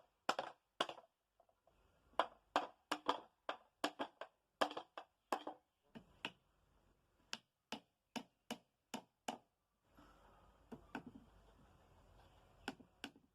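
A series of short, sharp taps and knocks at irregular spacing, roughly two a second, growing sparser and fainter over the last few seconds.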